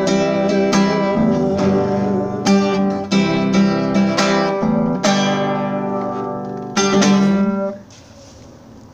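Nylon-string classical guitar strummed in an even rhythm, about two chords a second, as the song's instrumental ending. A chord rings out, one last strum follows near the end, and it is damped suddenly.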